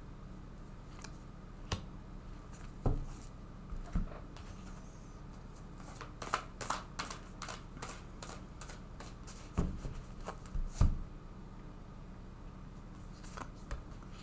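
Oracle cards being shuffled and handled: scattered flicks and soft taps of cards, with a quick run of card riffling about six seconds in and a few soft thumps as cards are set down.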